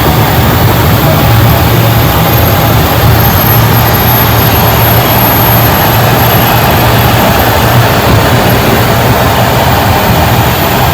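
Steady cockpit noise of a jet airliner taxiing with its engines running: an even low hum under a constant rushing hiss.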